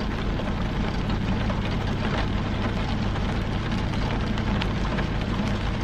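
Rain falling on a car's roof and windows, heard from inside the cabin as a steady hiss scattered with many small raindrop taps, over a steady low hum.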